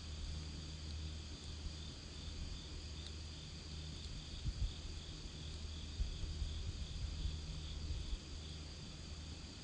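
Campfire burning with a steady low rumble and a few soft pops, over crickets chirping in an even, pulsing trill.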